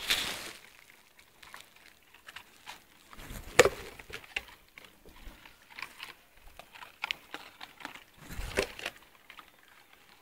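Scattered soft clicks and rustling close to the microphone, with two louder knocks about three and a half and eight and a half seconds in: the small sounds of stray puppies feeding at close quarters.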